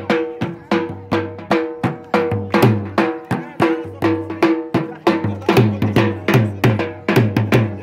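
Drum music for the attan dance: a drum beating a steady, fast rhythm of about three strokes a second, with held notes of a melody instrument running underneath.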